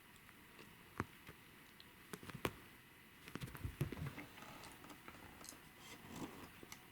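Faint scuffling of a kitten at play: a couple of sharp taps, then a cluster of soft thumps and rustles about three and a half seconds in, with scattered light ticks after.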